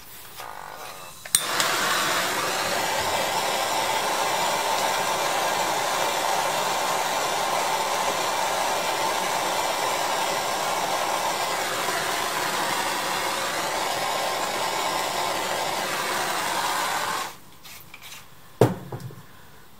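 Handheld gas torch lit with a click about a second in, then a steady hissing flame for about sixteen seconds, heating a thin brass stuffing tube to soften it for bending, before it cuts off; a single knock follows near the end.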